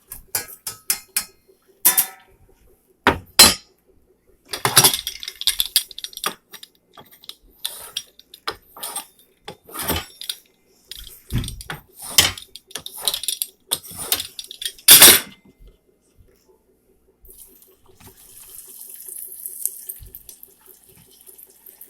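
Kitchen utensils and pans clattering in a run of sharp knocks and scrapes, then a steady hiss for a couple of seconds near the end.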